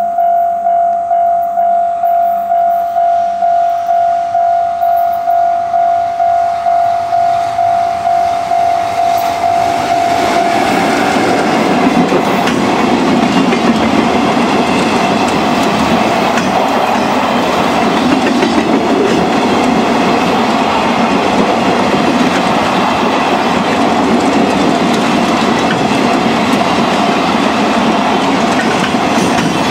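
Japanese level-crossing alarm ringing its repeated bell tone, about one and a half strikes a second. About ten seconds in, a freight train of two-axle Wamu 80000 covered wagons hauled by an EF66 electric locomotive runs through, its wheels clattering over the rail joints and drowning out the bell.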